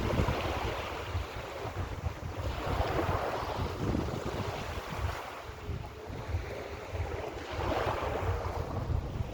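Mediterranean sea waves breaking and washing up the shore, swelling and fading about three times, with wind buffeting the microphone as a low rumble.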